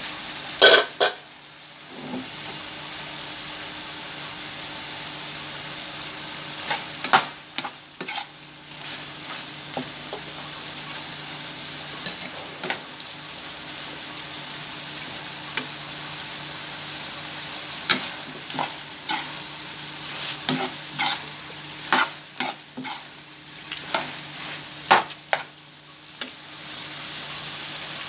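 Pork and liver strips sizzling in a frying pan while a metal spatula stirs them. The spatula clicks and scrapes against the pan in bursts.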